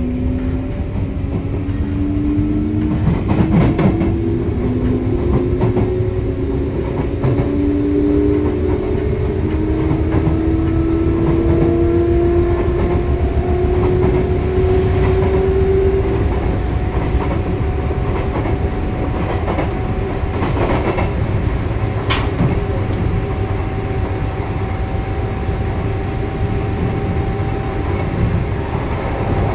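Sotetsu 9000 series electric train heard from inside the car: the traction motor and inverter whine climbs steadily in pitch as the train accelerates, then holds a level tone from about halfway through, over a steady running rumble. Wheels clack over rail joints.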